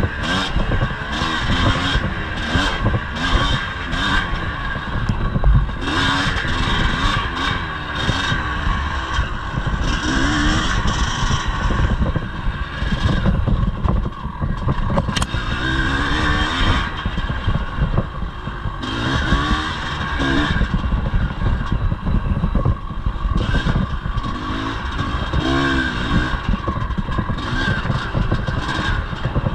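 1983 Yamaha IT 250's two-stroke single-cylinder engine revving up and down constantly as the bike is ridden hard, with a steady clatter of knocks and rattles over it.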